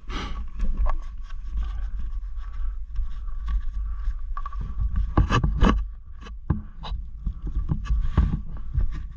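Footsteps crunching and scraping on dry, crusted dirt and loose stones, irregular clicks and scuffs that are loudest about five seconds in, over a steady low rumble.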